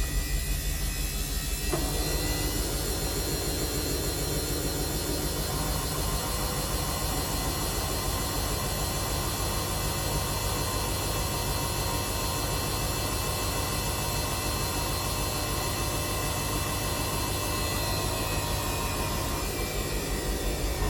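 Samsung washing machine running its drum motor, a steady whirring hum with a whine over it. More noise comes in sharply about two seconds in, and the whine drops in pitch near the end as the drum slows.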